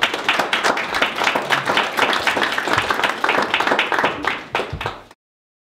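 Audience applauding, a dense patter of many hands clapping, which cuts off suddenly about five seconds in.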